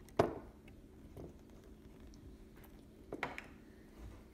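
Small clicks and taps from handling the metal lens barrel and rings of a 1950s Kodak Pony 135 Model B camera: one sharp click just after the start, a softer one about a second in, and a quick cluster of clicks a little past three seconds.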